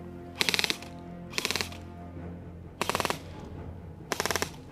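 An airsoft electric rifle firing four short full-auto bursts, each a rapid rattle of shots about a second apart, over background music.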